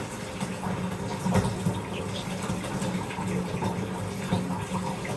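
Bath tap running, water pouring steadily into a filling bathtub.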